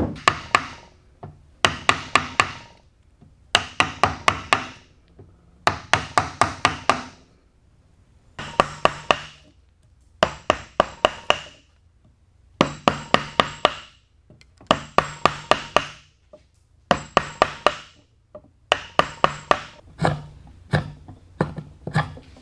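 A mallet striking wood in quick bursts of four to six sharp blows, one burst about every two seconds.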